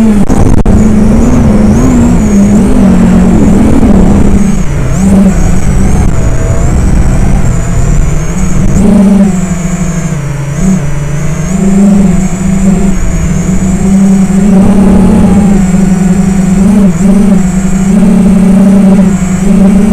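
FPV quadcopter's motors and propellers buzzing loudly, picked up by the onboard camera, with a wavering pitch that rises and falls continually with the throttle over the rush of air.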